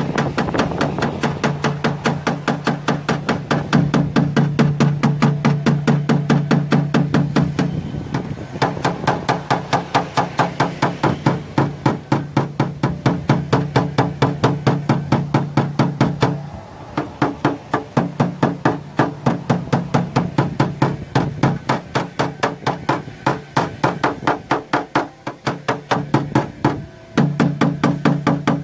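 Rapid, evenly paced light hammer taps, about five a second, on a car's rear door panel: paintless dent repair tap-down work knocking down high spots along the body line. The tapping pauses briefly a few times, over steady background music.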